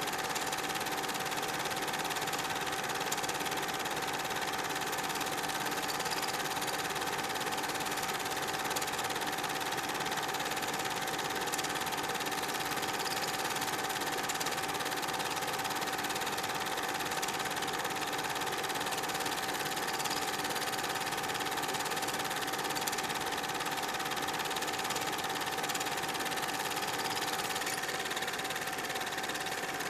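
Super 8 film projector running steadily: a constant mechanical hum with one steady tone above it.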